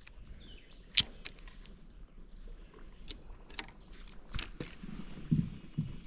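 Scattered sharp clicks and knocks from a spinning rod and reel being handled and cast from a kayak, the loudest about a second in.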